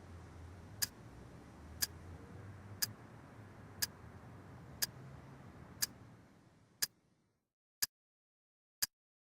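Alarm clock ticking once a second with sharp, even ticks, nine in a row. A faint low hum underneath cuts out about seven seconds in, leaving only the ticks.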